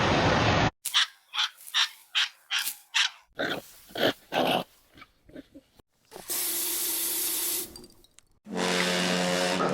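A dog giving a quick run of about ten short barks, between two bursts of hiss, with a held pitched tone near the end.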